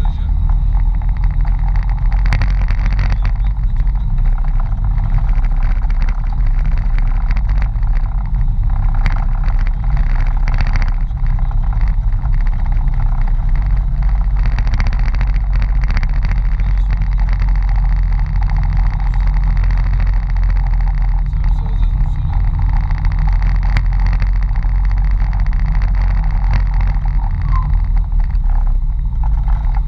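Mitsubishi Pajero off-road rally car's engine running steadily with a deep rumble, with a few short knocks and rattles along the way.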